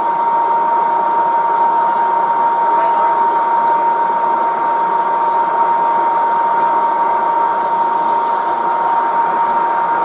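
A steady electronic tone held at one high pitch without a break, over a constant loud hiss.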